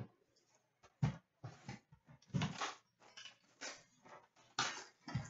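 Hands handling cardboard Upper Deck hockey card boxes and foil card packs on a counter: a string of short, irregular knocks and rustles.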